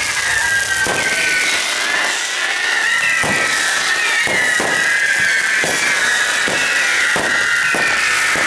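Maltese mechanical ground fireworks burning on their frame: spinning wheels of fountains give off several overlapping shrill whistles that slowly fall in pitch, with about a dozen sharp cracks at irregular intervals.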